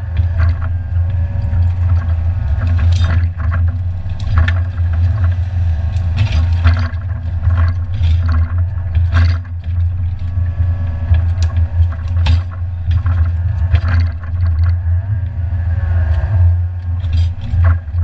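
Excavator's diesel engine running steadily under load, with a faint hydraulic whine above it. Repeated sharp knocks and clatter come as the timber grab handles the cut branches and logs.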